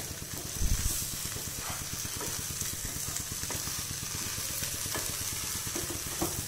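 Wooden spatula stirring and scraping cubes of idli with onion masala around a nonstick frying pan while the food sizzles steadily in oil, with a few light knocks of the spatula on the pan and a dull thump about a second in.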